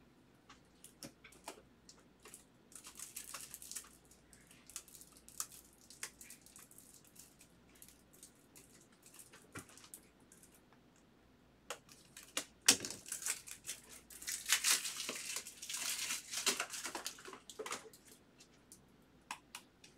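Foil trading-card pack wrapper crinkling and being torn open, with scattered light clicks and rustles of cards being handled. The crinkling is loudest in the second half.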